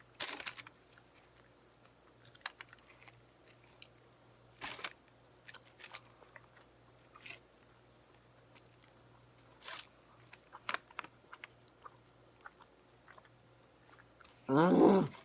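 Close-miked biting and chewing of a submarine sandwich: soft crunches and wet mouth clicks every second or so. A short vocal sound comes near the end.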